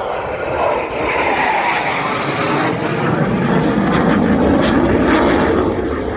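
Airplane flying past, a loud rushing engine noise that swells and drops in pitch as it goes by.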